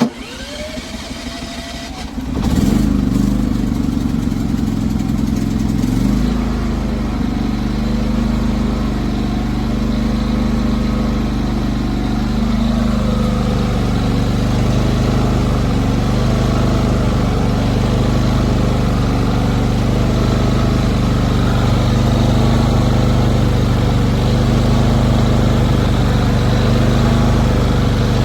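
Westinghouse dual-fuel inverter generator starting. A rising whir of the electric starter lasts about two seconds, then the engine catches, revs briefly and settles into a steady run.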